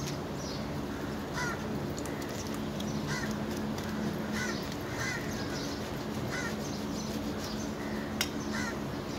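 Crows cawing repeatedly, a short call every second or so, over a steady low hum, with one sharp knock about eight seconds in.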